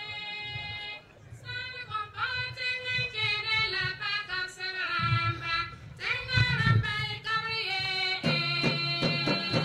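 Women's church choir singing, the melody gliding between held notes, swelling into a fuller held chord near the end.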